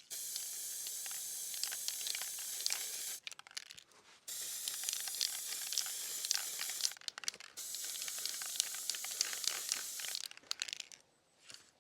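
Aerosol can of black heat-resistant spray paint hissing in three long sprays of about three seconds each, with short pauses between.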